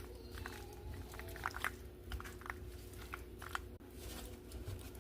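A spoon mixing penne, tuna and egg with Miracle Whip in a bowl: irregular soft, wet squishing and light clicks.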